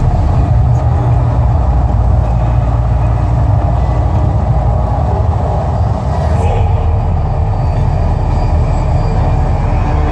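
Loud, steady, deep rumble from the Mirage volcano show's sound effects, heavy in the bass with no clear beat.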